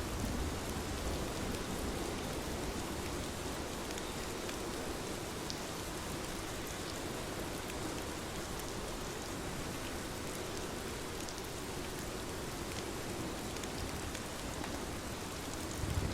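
Steady rain falling on a surface: an even hiss with scattered individual drop ticks.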